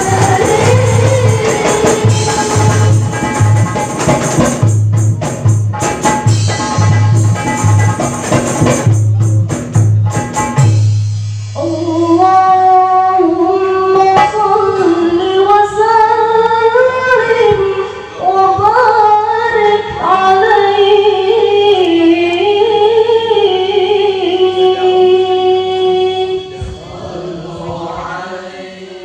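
Marawis ensemble: hand drums, jingles and a deep bass drum beat a fast rhythm for about the first ten seconds. Then the drumming stops and a single voice sings a long, winding sholawat melody that fades near the end.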